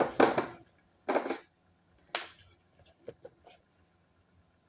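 Close handling noises while preparing food over a bowl: three short scrapes or rustles, the loudest at the start and the others about one and two seconds in, then a few faint clicks.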